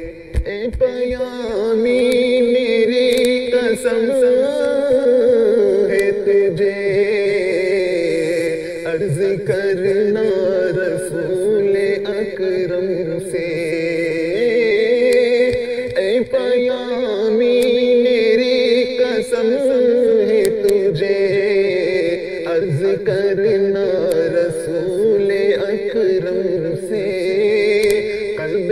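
Solo voice singing an Urdu devotional salam (naat) in a slow, melismatic chant, the melody wavering and sustained through long phrases.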